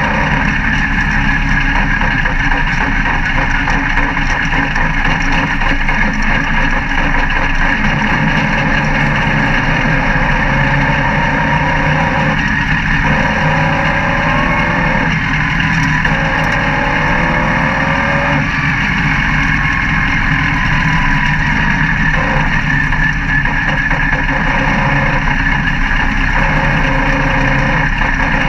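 Dirt-track race car's engine running hard at race pace, heard from inside the cockpit, its pitch swinging up and down for several seconds midway as the throttle comes on and off.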